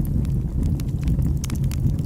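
Wood fire burning in a fireplace: a steady low rumble of flames with scattered sharp crackles and pops.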